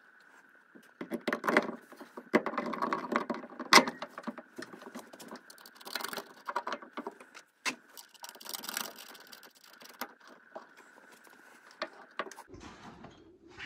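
Metal parts clinking, knocking and rattling as a BC Racing rear coilover shock is handled and offered up to the rear axle mount, with one sharper knock about four seconds in.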